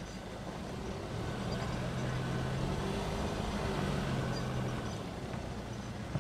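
A car's engine and road noise heard from the moving car at low speed, the engine note climbing slightly and then easing off.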